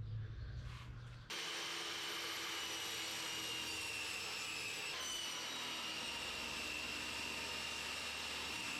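A steady mechanical whirring noise with a constant high whine, starting abruptly about a second in and running on evenly.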